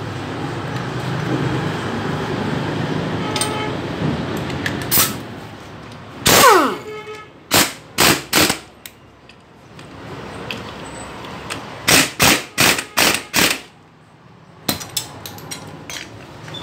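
Impact wrench hammering on a gear nut on the crankshaft side of a Bajaj Pulsar 150 engine, in short rattling bursts: one longer burst with a falling whine about six seconds in, then groups of three and five quick bursts, and a last couple near the end.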